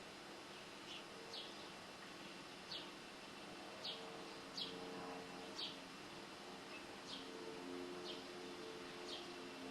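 Bird calls: short, sharp chirps that fall in pitch, repeating about once a second, over low sustained tones.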